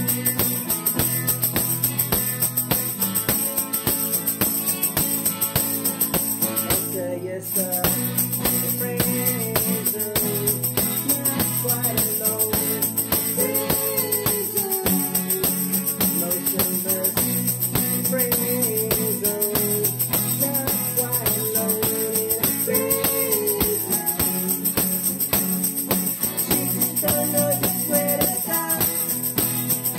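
A guitar-band song: a Rickenbacker electric guitar and an acoustic guitar strummed to a steady beat, with a constant tambourine jingle and a male lead vocal. The music breaks off briefly about seven seconds in, then carries on.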